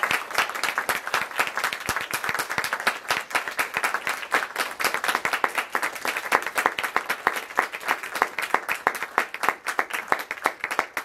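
Small audience applauding, many hands clapping steadily with individual claps distinct.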